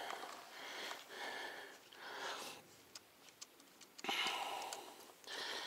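A person breathing hard close to the microphone, about one heavy breath a second, winded from riding a mountain bike uphill. A few small clicks fall in a short pause in the breathing about three seconds in.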